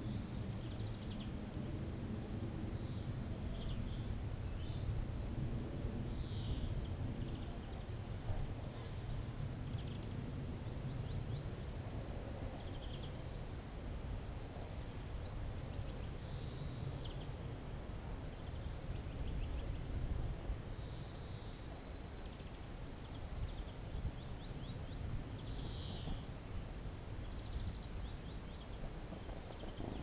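Small birds at a feeder chirping and calling, with short high calls coming every second or so, over a steady low rumble.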